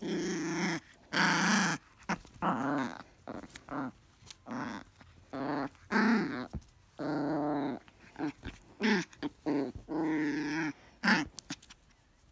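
Small dog play-growling: a string of growls, each up to about a second long with short gaps between, as it tussles with a blanket and the owner's hand.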